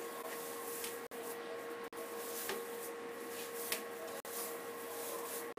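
Steady electrical hum and hiss with a constant mid-pitched whine, cut by brief dropouts about three times.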